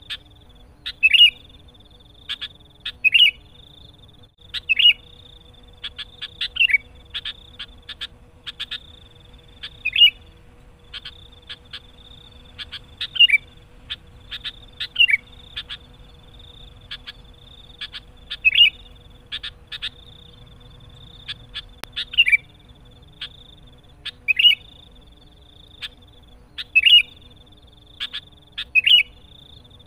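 Sooty-headed bulbul (kutilang) calling over and over in a vigorous challenging run meant to provoke a rival: a short bright phrase about every two seconds with quick chattering chips between. A steady thin high tone runs behind it, breaking off briefly now and then.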